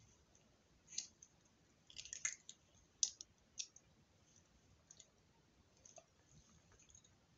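Sparse light clicks and taps of small hard objects being handled, with a quick cluster about two seconds in and single clicks every second or so after.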